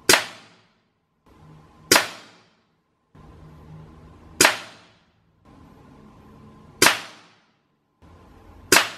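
Five shots from a .25-calibre (6.35 mm) Norica Dark Bull PCP air rifle, about two seconds apart. Each is a sharp crack that dies away within half a second, and between the shots there are short gaps of dead silence.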